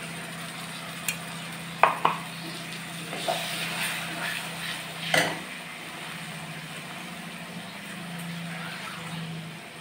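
Metal spatula stirring tomato purée into frying masala in an iron kadhai, scraping the pan with a few sharp clinks, the loudest about two and five seconds in, over a soft sizzle.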